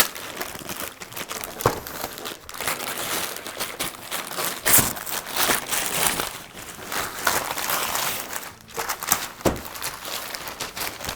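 Paper being torn and crumpled as a gift is unwrapped: a stretch of irregular crinkling and ripping with sharp crackles.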